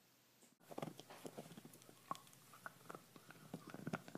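Faint, irregular clicking and tapping, a few light knocks a second at uneven spacing.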